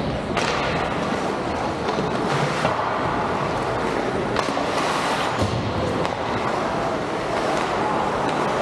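Ice hockey play on a rink: a steady wash of skates scraping and carving the ice, broken by several short, sharp scrapes or knocks.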